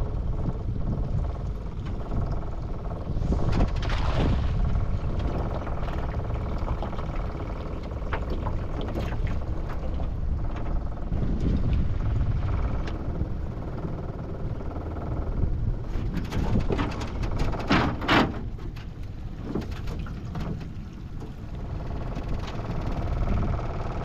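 Cast net being thrown and hauled back by hand into an aluminium dinghy: water splashing and pouring off the mesh, louder about four seconds in and again around eighteen seconds, over a steady low rumble.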